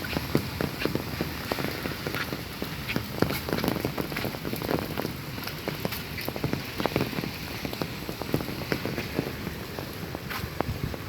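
Steady rain falling, with many individual raindrops striking close by in a dense, irregular patter.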